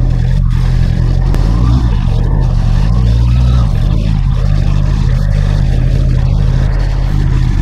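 Honda CBR650R's 649cc inline-four engine running steadily while the motorcycle is ridden, with wind rushing over the microphone.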